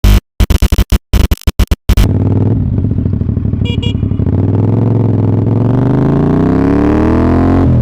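A rapid stutter of short, choppy bursts of sound for about two seconds, then a CF Moto 450SR's parallel-twin engine running loudly and steadily, its pitch climbing gradually as the motorcycle accelerates.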